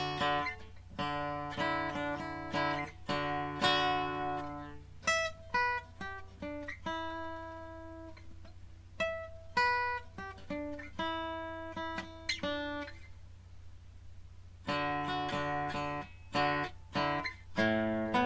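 Harley Benton HBD-120CE dreadnought cutaway acoustic-electric guitar played: strummed chords, then single picked notes and arpeggios ringing out to a brief pause, then strummed chords again near the end.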